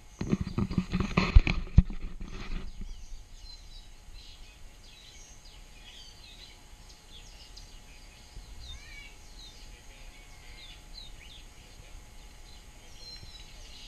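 Small birds chirping and twittering faintly, many short quick notes scattered throughout. Knocks and rustling in the first two or three seconds.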